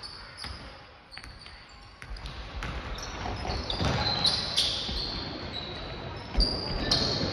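Basketball game play: a ball bouncing on the court in a run of sharp knocks, with short high squeaks of sneakers on the floor and scattered voices.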